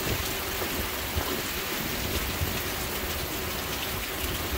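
Steady rain falling, an even hiss with scattered drops.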